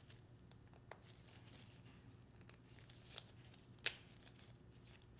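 Near silence, with a few faint clicks and light handling noises as gloved hands fit a rubber diaphragm onto a metal diaphragm plate. The sharpest click comes about four seconds in.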